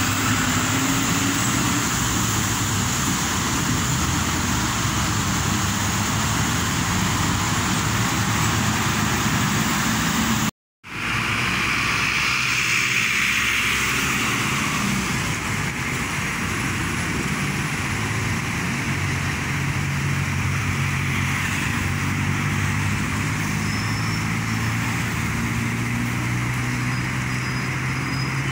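Road traffic with a city bus passing close by, its engine humming low over steady traffic noise. The sound drops out completely for a moment about ten seconds in.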